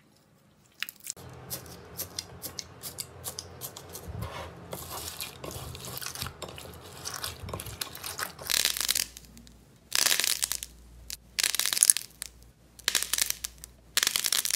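Slime being squeezed and pressed by hand. First comes a stretch of fine crackling and popping, then about half a dozen loud crunching squeezes, roughly a second apart.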